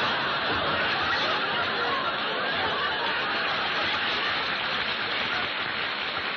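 Studio audience laughing at a comedy punchline: a long, steady wave of laughter from a large crowd.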